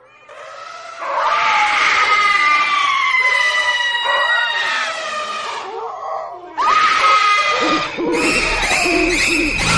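Ghost horror sound effect: eerie wailing, scream-like howls with long, slowly falling tones, then a new rising shriek, giving way near the end to a pulsing, repeating tone over a low hum.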